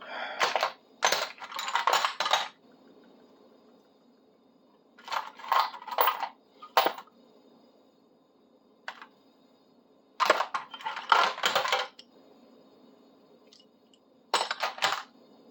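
Metal sockets clinking and rattling against each other in bursts as they are rummaged through to find a 10 mm socket.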